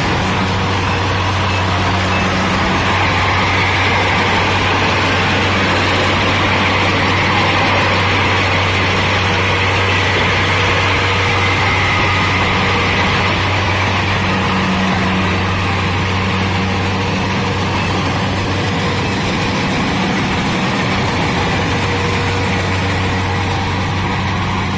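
Kubota DC-70 combine harvester's diesel engine running steadily, a constant low hum under an even mechanical noise.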